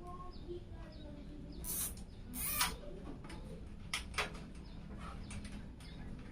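Hands handling computer parts during a PC build: two brief rustles followed by a few sharp clicks, over a low steady hum.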